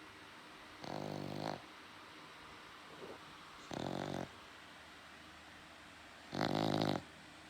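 A dog snoring loudly: three long snores, each about half a second, coming roughly every two and a half seconds, with a fainter one between the first two.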